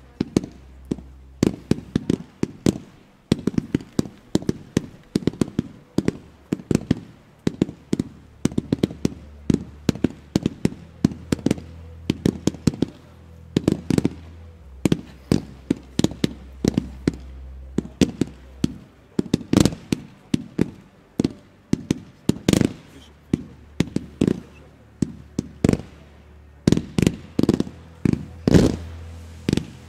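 Fireworks barrage of gold-tailed shots fired from launch tubes in quick succession: a rapid, irregular string of sharp bangs, several a second.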